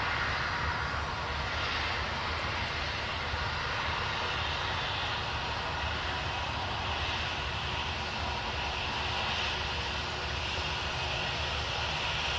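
Boeing 747-400F's four jet engines running steadily on the ground: a constant rumble and hiss that holds at one level throughout.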